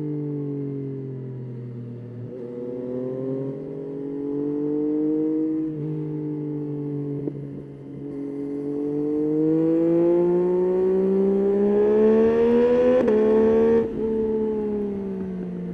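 Yamaha Tracer 9's three-cylinder engine pulling through the gears, its pitch rising, then dipping at each shift. A long climb in the second half grows loudest before the throttle closes suddenly and the revs fall away.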